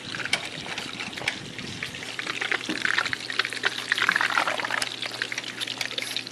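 Water splashing and trickling in a custom PC water-cooling loop while it is filled and the air is bled out, with a faint steady pump hum underneath. The splashing swells about halfway through.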